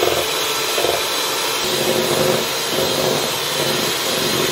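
Electric hand mixer running steadily at speed, its wire beaters whisking raw egg whites into froth in a plastic bowl.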